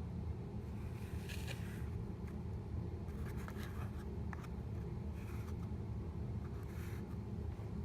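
Faint scratching and scraping as cardboard is handled, in a few short spells over a low steady hum.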